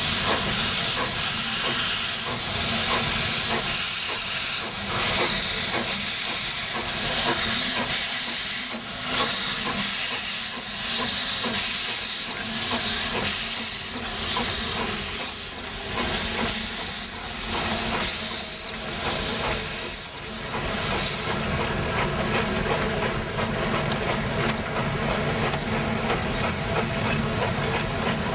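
Steam locomotive hissing steam, with a regular surge about every second and a half that stops about twenty seconds in, leaving a steady hiss.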